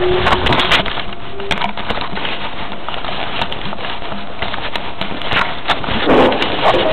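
Handling noise of a camera being carried and moved with its microphone covered: loud rustling with many knocks and scrapes, a louder patch about six seconds in.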